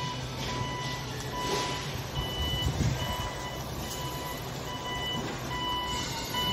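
Electronic warning beeper on construction machinery, sounding a single-pitched beep over and over, about once a second, over a low steady engine hum.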